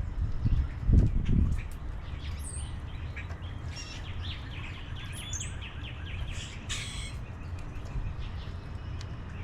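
Small birds chirping and calling at a feeder, with a quick run of repeated short notes in the middle. A few low thumps come in the first second and a half.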